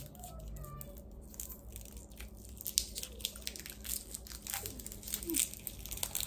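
Packaging being handled and opened by hand: irregular crinkling and tearing crackles.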